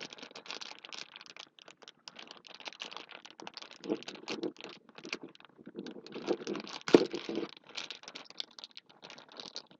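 Small plastic parts bags from a 3D-printer hot end kit crinkling, with small parts clicking and rattling as they are handled. One sharp click, the loudest sound, comes about seven seconds in.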